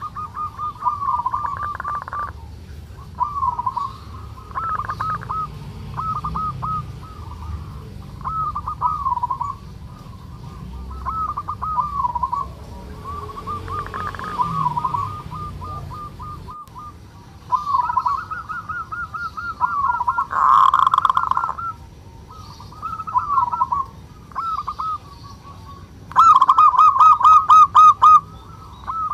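Male zebra dove (perkutut) giving its 'kerot' call, the call of a bird in breeding drive: short phrases of quick, warbling cooing notes, repeated every second or two. Near the end comes a louder, faster run of notes.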